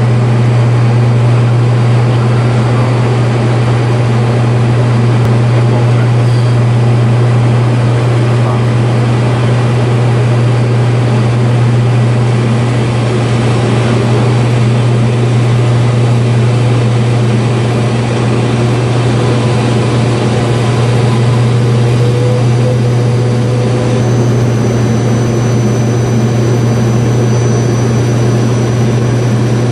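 Fokker 50 turboprop airliner heard from inside the cabin on approach: the six-bladed propellers give a loud, steady low hum over a broad rush of engine and air noise.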